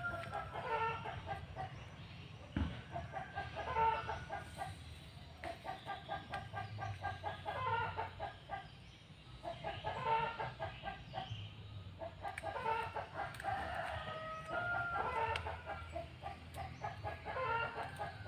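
Chickens clucking: short runs of quick repeated notes that come back every couple of seconds. One soft low thump about two and a half seconds in.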